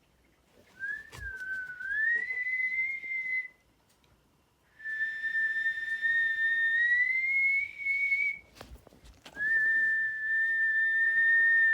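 A person whistling three long notes: the first wavers and then slides up, the second climbs slowly, and the third is held steady. Two brief soft knocks come between them.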